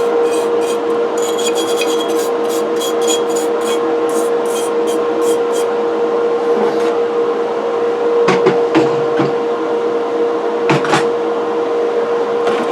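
A brush scrubbing cast-iron coffee grinder parts, quick rhythmic strokes about three or four a second for the first half, then a few separate knocks, over a steady hum.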